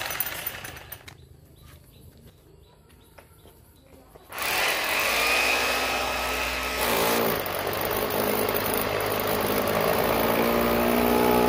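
A handheld power tool runs and winds down within the first second. After a quiet spell with a few light clicks, an engine starts running about four seconds in and keeps going steadily, its pitch wavering.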